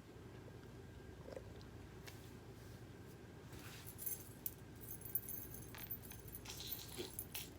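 Faint rustling with scattered light clicks and a soft, high jingle, mostly in the second half.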